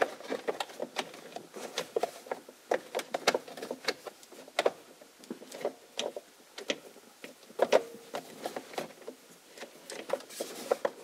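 Irregular clicks and light knocks of a screwdriver and hard plastic trim while the steering column cover's screws are taken out.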